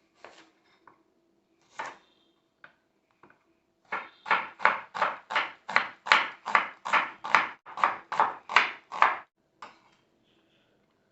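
Knife chopping vegetables on a cutting board: a few separate cuts, then a steady run of about fifteen chops, roughly three a second, that stops about two seconds before the end.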